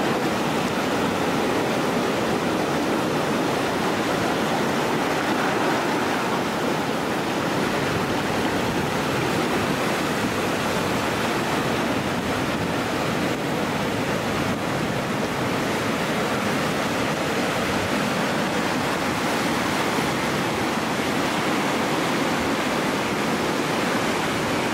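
Steady rush of churning whitewater pouring through an artificial canoe slalom channel.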